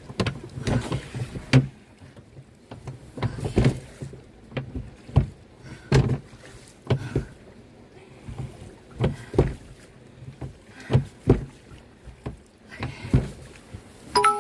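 Canoe paddle strokes: a string of short splashes and knocks of the paddle in the water and against the hull, irregular, roughly one every second.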